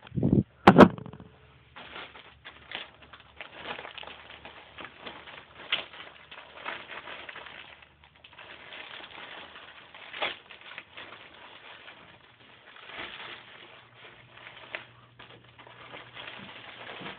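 A cardboard shipping box being opened by hand: two loud knocks within the first second, then continuous irregular crackling and rustling of cardboard and plastic packaging.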